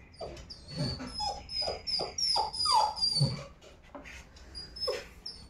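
Young dog whimpering, a run of short, falling cries about two a second.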